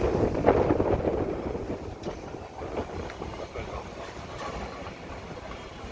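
Heritage railway train running: a steady rumble with a few short clicks, louder in the first second or so and then settling lower.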